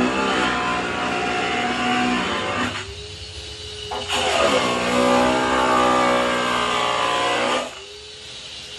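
Frightened domestic cat yowling: two long drawn-out wails, each sliding down in pitch and then holding, the second starting about four seconds in. This is the defensive caterwaul of a cornered, scared cat.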